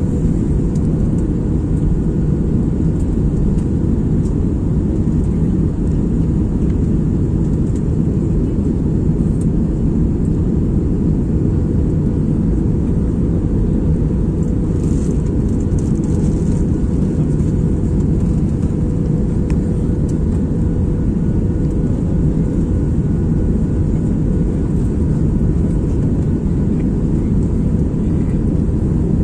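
Steady roar of an Airbus A320 airliner heard from inside the passenger cabin on final approach: engine and airflow noise with a steady hum running through it.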